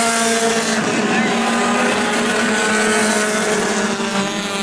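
Race car engines running steadily at low speed, with a noisy hum of motors and tyres.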